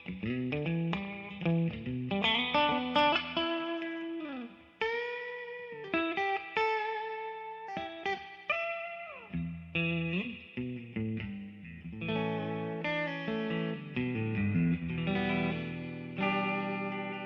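Electric guitar played through effects for a tone test: picked single notes and chords, with a string bend held and released about five seconds in and sliding notes a little later.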